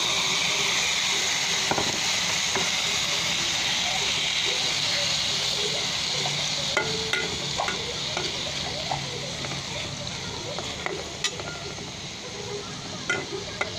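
Tomato wedges sizzling in hot oil in a frying pan, the sizzle loudest at first and dying down as they cook. A metal spatula stirs them, clicking against the pan a few times in the second half.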